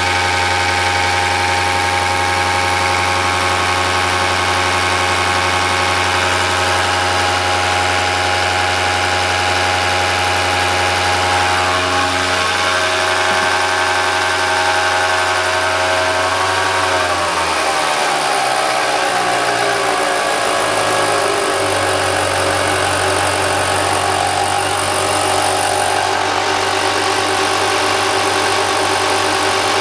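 A Bosch test bench drives a Bosch H-series inline diesel injection pump under test. It makes a steady machine hum of several steady tones. About 17 seconds in, the pitch shifts as the speed or load changes, and then it holds steady at the new note.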